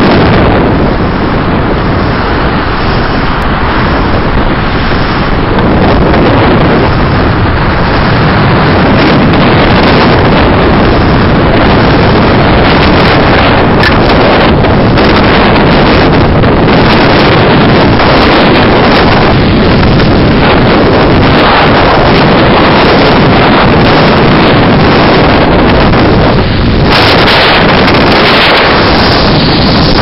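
Loud, steady storm wind on the microphone over heavy surf breaking on a rocky shore.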